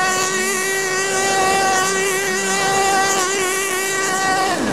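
Remote control car's electric motor running flat out: a steady high-pitched whine held at an even pitch.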